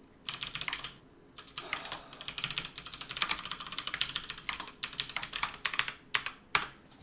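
Fast typing on a computer keyboard in quick bursts of key clicks, with a short pause about a second in and two louder key strikes near the end.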